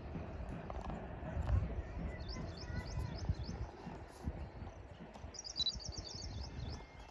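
Wind gusting on the microphone as a low, uneven rumble, with a small bird's rapid chirping trill twice, about two seconds in and again near the five-second mark.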